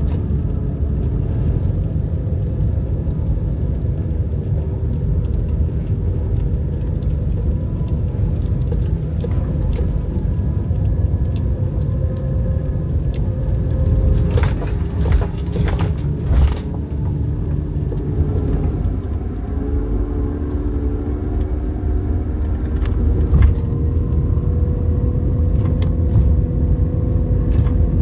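Vehicle engine running under a heavy low rumble, as when driving. Its pitch shifts a few times and there are a few sharp knocks about halfway through.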